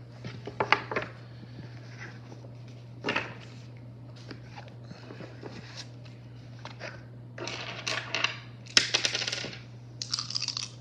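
Paper sheets and a cardboard game box being handled, with sharp clicks as items are set down, then plastic polyhedral dice clicking and rattling together in a hand near the end. A steady low hum runs underneath.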